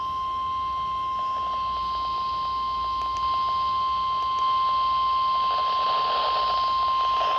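NOAA Weather Radio 1050 Hz warning alarm tone: one steady, unbroken high beep over radio hiss. It is the alert signal that a warning is about to be read, here a special marine warning.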